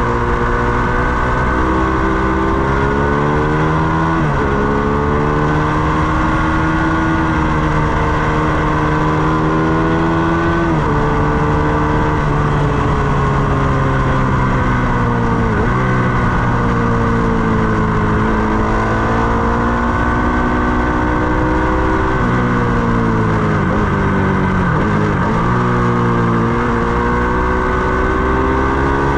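Ducati Panigale 899's 90-degree V-twin engine running hard on track. The pitch climbs and breaks at each gear change, with a quick run of dips and rises about 24 seconds in.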